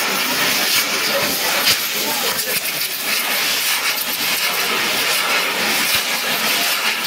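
Tower of fountain fireworks spraying sparks: a loud, steady hiss shot through with quick crackles.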